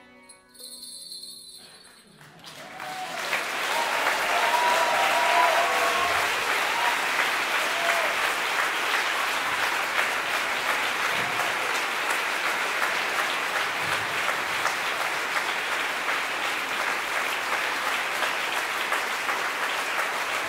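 The last notes of the traditional ensemble's music die away, and about two seconds in a large concert audience breaks into steady applause that carries on to the end.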